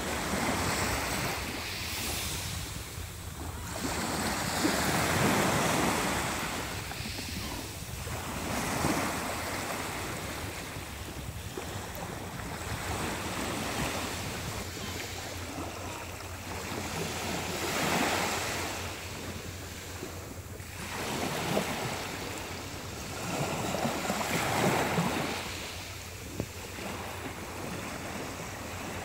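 Small waves breaking on a fine-pebble beach and washing back over the stones, each surge swelling and fading every three to four seconds.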